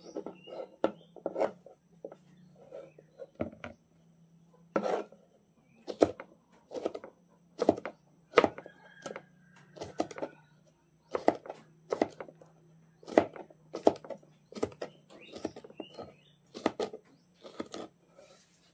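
Kitchen knife slicing angled luffa (patola) into strips on a plastic cutting board: a steady series of knocks, roughly one a second, as the blade cuts through the gourd and strikes the board.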